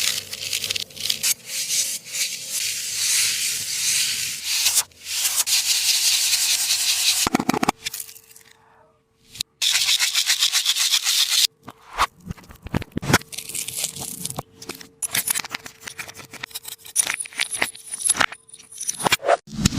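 A taba squishy, a paper-and-tape squishy toy, squeezed and rubbed by hand, making dry scratchy rubbing and crinkling. A brief pause comes about eight seconds in, followed by more rubbing and then scattered crackles and taps.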